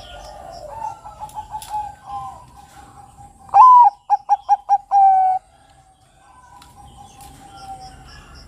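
Bangkok-strain zebra dove (perkutut) singing one loud song about three and a half seconds in: a strong opening coo, a quick run of about five short notes, then a longer closing note. Fainter dove coos and small-bird chirps sound around it.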